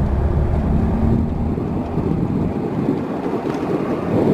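Converted-bus motorhome driving on the highway: a steady low drone of engine and road noise, with wind rushing over the microphone.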